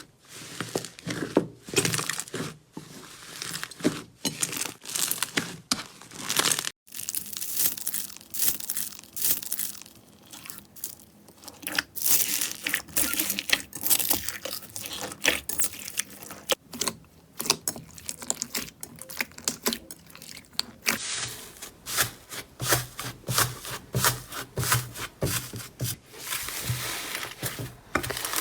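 Slime being squeezed and pressed by hand, with dense, irregular crackling and popping. The sound breaks off briefly about seven and about twenty-one seconds in.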